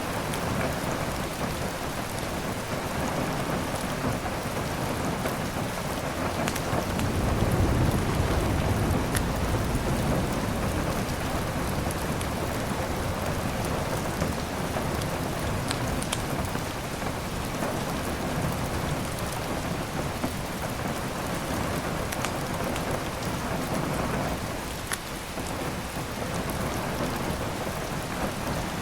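Steady heavy rain with a low roll of thunder that swells about seven seconds in and fades over a few seconds. A few faint sharp crackles from a wood fire sound now and then.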